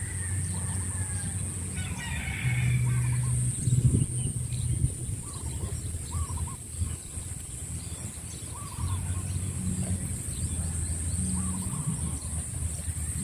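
Chickens clucking, with a rooster crowing briefly about two seconds in, over a steady high-pitched insect drone and a low rumble. A single knock about four seconds in is the loudest moment.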